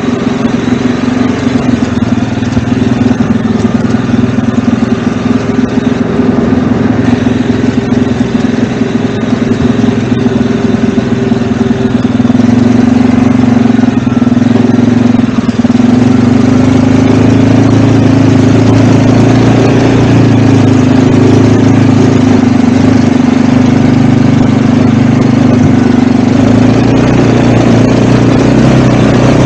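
ATV engine running steadily while being ridden, with small shifts in pitch, a little louder about halfway through.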